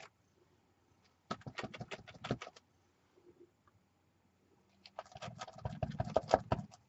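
Light, quick taps and clicks of painting tools in two short bursts, about a second in and again near the end, as gold paint is worked onto a journal cover.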